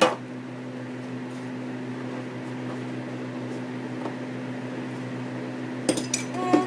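A steady low machine hum, like an appliance or fan running. About six seconds in come a few light knocks and clicks as tortillas and a jar are handled on the counter.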